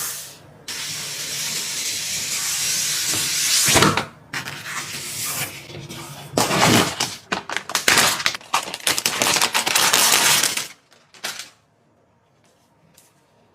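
Hands-on handling noise while a PC is being assembled: a steady hiss for about three seconds, then a long run of crackles and clicks.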